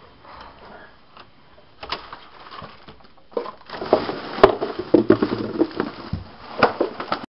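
Irregular knocking, clattering and rustling from the camera being handled and moved about, loud and dense from about three and a half seconds in, then cutting off.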